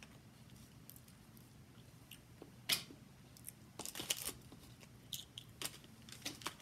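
Boiled snow crab leg shells being cracked and snapped apart by hand: a handful of short, sharp cracks and crackles, the loudest about two and a half seconds in and a small cluster around four seconds.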